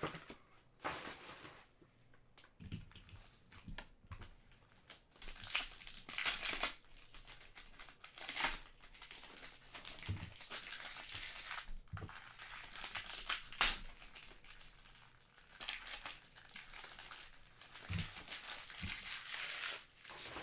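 Plastic wrapping on trading card hobby boxes and packs being crinkled and torn open, in irregular rustling bursts with a few light knocks.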